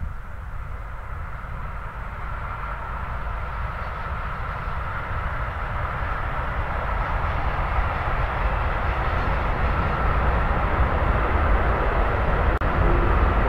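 Freight train of tank wagons rolling past at a distance: a steady rumble of wheels on rails that grows gradually louder.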